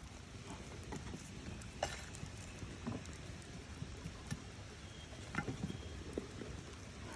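Campfire crackling: scattered sharp pops and clicks over a steady low hiss.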